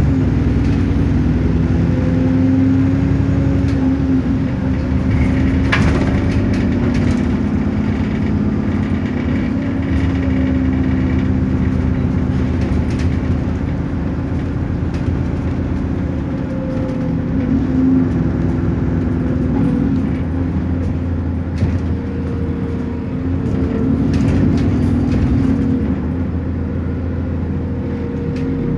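Go-Ahead London Metrobus bus E213 heard from inside the passenger cabin while driving: a steady engine hum whose pitch shifts slightly as the bus speeds up and slows, with interior rattles and a sharp crack about six seconds in.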